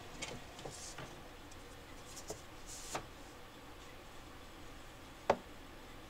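Wooden hive frames being handled and set into a Slovenian hive box: scattered light clicks and wooden knocks with a couple of brief sliding swishes, the loudest sharp knock about five seconds in.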